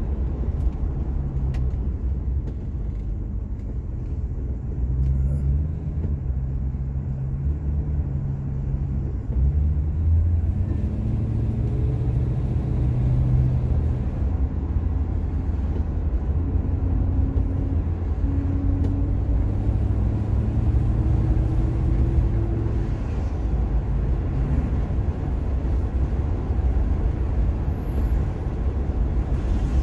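Car engine and road rumble heard from inside the cabin while driving, a steady low drone whose engine note rises and shifts in pitch as the car speeds up and changes gear.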